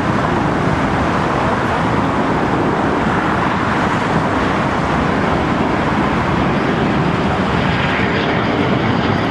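Boeing 737 on final approach with gear down, its CFM56 jet engines a steady rushing noise.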